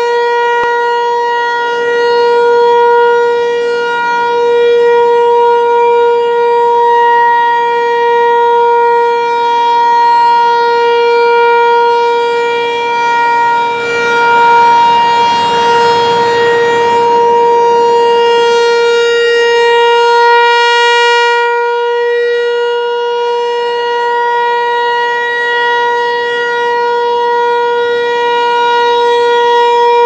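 Federal Signal Equinox electronic warning siren sounding a steady, unwavering alert tone in a full siren test. A rush of noise rises and fades about halfway through.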